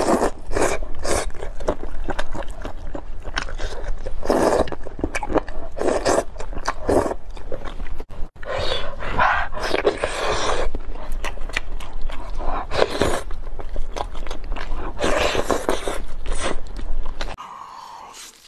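Close-miked wet eating sounds from a person biting, sucking and chewing saucy seafood and a glazed chicken leg, in quick irregular bursts. There is a brief break about eight seconds in, and the sound drops away sharply near the end.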